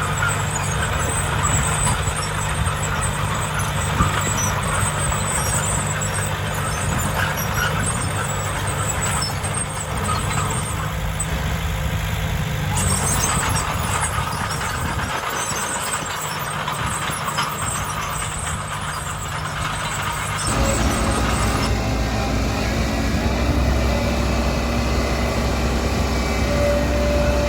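Heavy construction vehicle engine running steadily, with its sound changing abruptly about 13, 15 and 20 seconds in.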